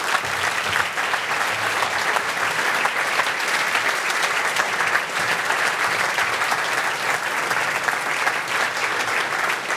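Audience applauding steadily, a dense wash of many hands clapping with no break.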